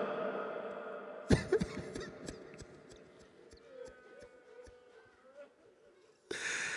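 Pause in a chanted lament: the reciter's last line dies away in the hall's echo, then a handful of irregular knocks about a second in, faint murmuring voices, and a short breathy hiss into the microphone near the end.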